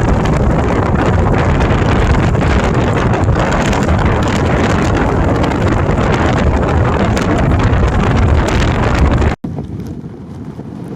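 Strong wind buffeting the microphone: a loud, dense rumble of noise, heaviest in the low end. It cuts off abruptly about nine seconds in, and quieter wind noise follows.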